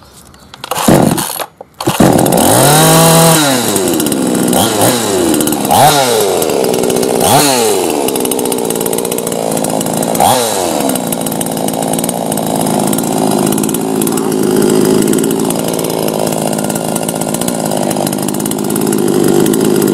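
Star Kut SKE-CS 22 chainsaw's two-stroke petrol engine catches about two seconds in, running at no load with no bar or chain fitted. It is revved up and down several times, then settles to a steady run. The engine is running well.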